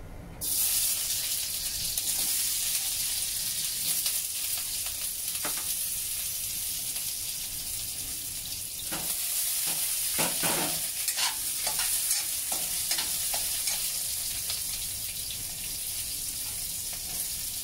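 Potato chunks pan-frying in hot oil in a wok: a steady sizzle that starts suddenly about half a second in as the potatoes go into the oil. Occasional knocks and scrapes of a metal spatula turning them.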